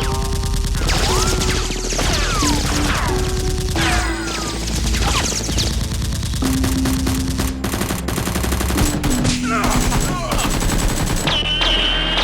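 Rapid bursts of automatic gunfire sound effects, with repeated falling whizzing sounds, over background music.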